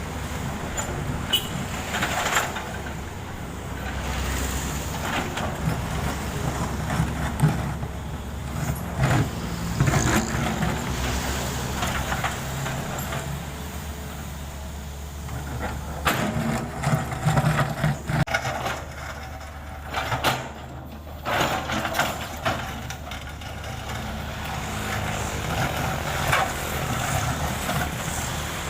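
Heavy diesel machinery and trucks running with a steady low drone, broken by repeated short clanks and knocks.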